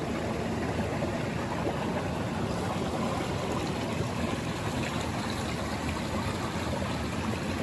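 Mountain stream flowing with a steady, even rush of water.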